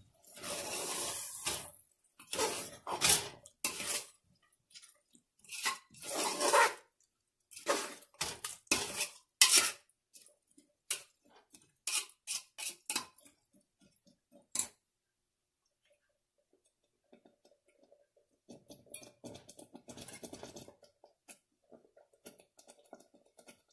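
Steel spoon stirring a thick kurma in an aluminium pressure cooker, scraping and clinking against the pot's sides in bursts. The clatter stops about fifteen seconds in, and fainter scraping follows near the end.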